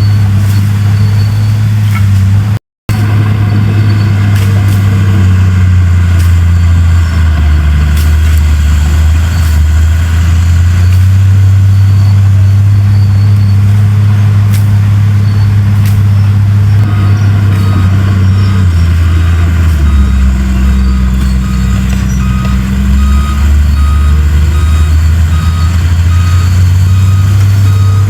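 Heavy diesel earthmoving machinery running loud and steady, its engine note rising and falling under load. From about two-thirds of the way in, a reversing alarm beeps at an even pace. The sound drops out briefly about three seconds in.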